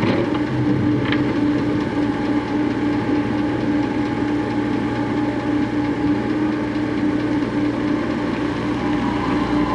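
Heavy diesel engines of an excavator and dump trucks running steadily, with a short sharp clank about a second in.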